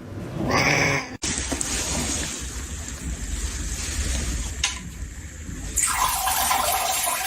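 Running water, a steady hiss like a tap or flush, starting abruptly about a second in and growing louder near the end.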